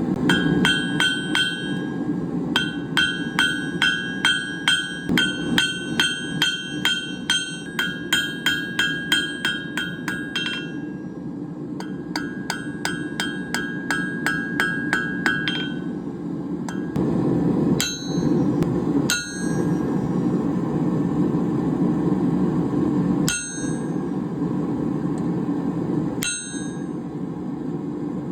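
Blacksmith's hammer striking hot steel round stock on an anvil, each blow ringing with a clear metallic tone. Quick runs of blows at about four a second, with a short break, give way to single blows a few seconds apart, over a steady low rumble.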